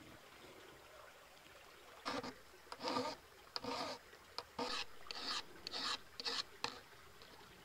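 Hand rubbing strokes on the brass nose cap of a flintlock rifle's wooden forend: about eight uneven strokes, starting about two seconds in.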